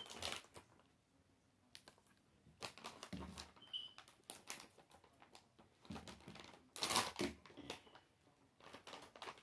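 Plastic bag of frozen pineapple chunks crinkling as it is handled and opened, in irregular crackles and clicks, loudest about seven seconds in.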